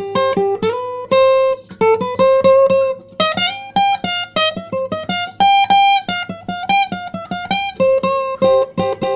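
Acoustic guitar playing an instrumental passage: a quick run of single plucked melody notes over bass notes, with no singing.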